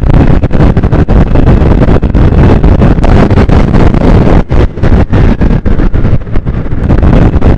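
Heavy wind buffeting on the microphone of a camera riding on a 109 cc scooter at speed, over the scooter's engine running flat out in a drag race.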